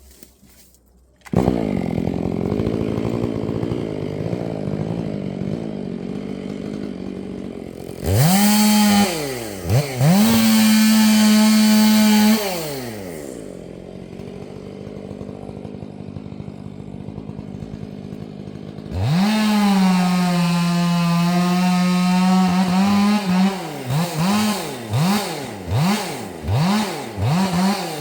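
Stihl MS 500i fuel-injected two-stroke chainsaw starting about a second in and settling to idle. It is then run up to full throttle for a few seconds, twice, drops back to idle, and is held at full throttle again. Near the end it gives a string of about five quick throttle blips.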